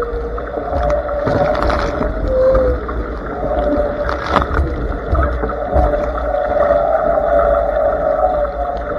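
Blaze racing dinghy planing in strong gusty wind: a steady loud rush of water and spray along the hull, with a wavering hum underneath and a few sharper splashes as spray hits the boat.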